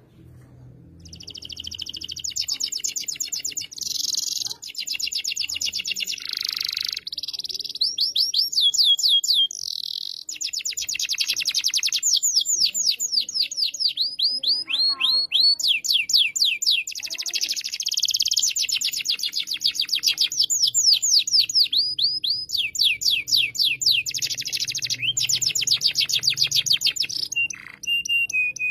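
Domestic canary in full song: a long, near-continuous run of fast trills and rapidly repeated notes, with sweeping falling notes, in phrases separated by short breaks, starting about a second in.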